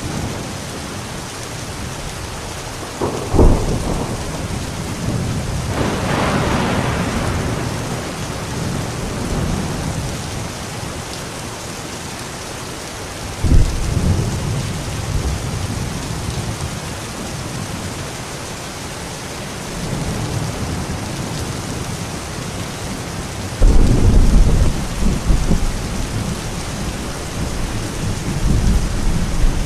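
Thunderstorm: steady rain with repeated thunder. Sharp claps come about three seconds in, near the middle and about two-thirds through, each trailing into a low rolling rumble, with a crackling peal a few seconds after the first.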